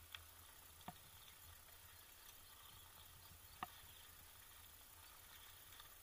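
Near silence with a faint steady low hum, broken by two short clicks: a faint one about a second in and a sharper one a little before four seconds.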